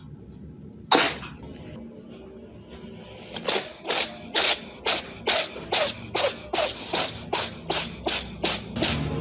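A pet sneezing: one sharp, loud sneeze about a second in, then a fast, even run of short sneeze-like blasts, about two or three a second, that carries on to the end.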